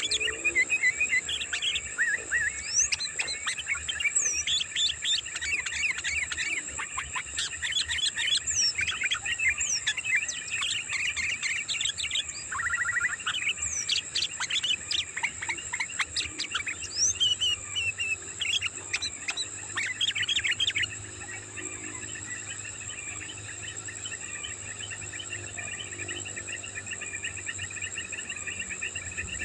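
Sooty-headed bulbuls (kutilang) chattering busily in quick sweeping notes over a steady high insect drone, the lure call for wild bulbuls. The calling thins out about two-thirds of the way through, leaving mostly the insect drone.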